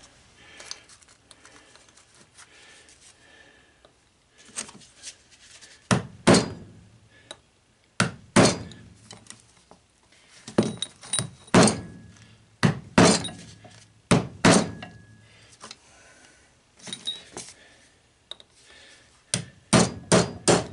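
Hammer blows on a socket or punch set against copper tubing to drive it out of a brass fitting. About fifteen sharp, irregularly spaced metal strikes with a slight ring start a few seconds in, working a stubborn piece until it pops free.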